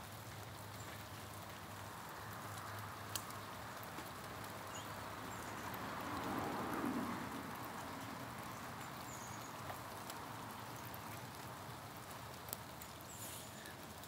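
Meltwater and loosened ice dropping from thawing, ice-glazed tree branches onto the ground below, a steady rain-like patter with scattered sharper drops. About halfway through there is a brief louder rush.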